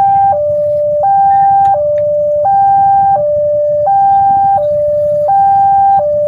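Railway level-crossing warning siren sounding a continuous two-tone hi-lo alarm, switching between a higher and a lower steady tone about every 0.7 seconds. A steady low rumble runs underneath.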